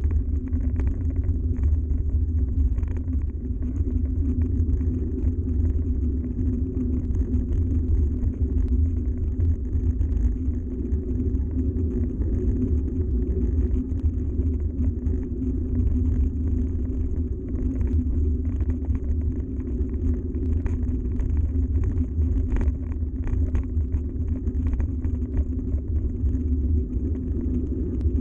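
Yeti SB130 mountain bike rolling along a gravel track: a steady low rumble from the ride, with a light scatter of small crackles from the stones under the tyres.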